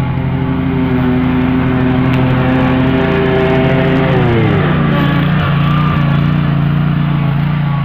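Lawn mower engine running loudly at close range as it passes, its pitch dropping noticeably about four seconds in and then holding steady lower.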